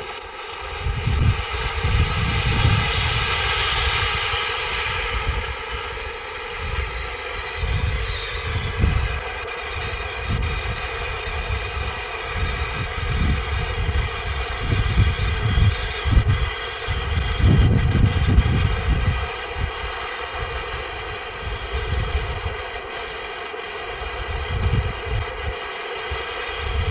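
Firework fountain burning with a steady hissing spray of sparks, loudest and brightest for the first few seconds. Gusts of wind buffet the microphone throughout.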